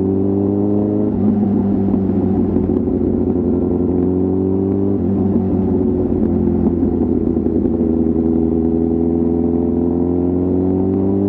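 Kawasaki ZX-10R inline-four sport bike's exhaust under acceleration, its pitch climbing and then dropping sharply at upshifts about a second in and again about five seconds in. After the second shift it pulls in a long, steady climb.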